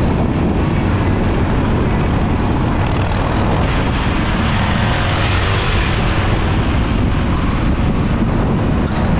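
Motorcycle engine running steadily at road speed, with heavy wind rush on the microphone; a rushing hiss swells around the middle and fades.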